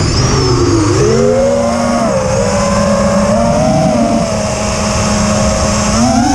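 FPV racing quadcopter's EMAX RS2205 2300kv brushless motors whining with props in flight. The pitch climbs about half a second in, holds fairly steady with a lower steady tone under it, then rises and drops sharply near the end. This is the strange sound the owner has heard since switching to TBS Bulletproof 25A ESCs on DShot 600 with Betaflight 3.1.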